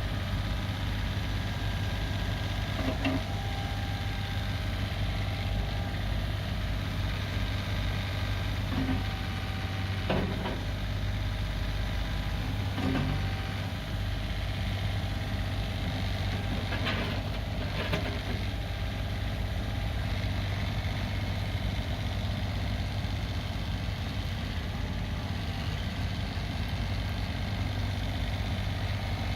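The 25 hp Kubota diesel engine of a Cougar CG827 tracked skid steer loader running steadily, with a handful of short clunks and knocks from the machine scattered through.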